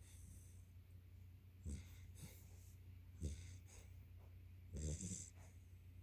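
Yellow Labrador puppy snoring in its sleep: faint, short snoring breaths about every second and a half, three of them clearly, over a steady low hum.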